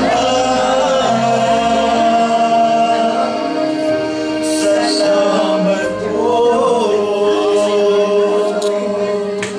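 A small group of men and women singing together from song sheets, holding long notes, with one voice through a handheld microphone.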